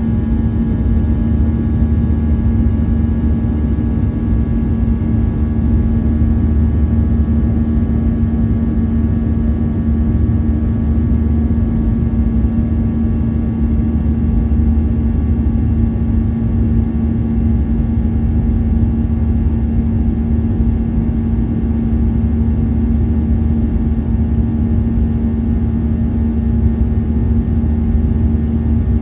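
Boeing 737-800's CFM56-7B turbofan engines running steadily in the climb after takeoff, heard from inside the cabin: a deep constant rumble under a steady hum with several fixed whining tones above it.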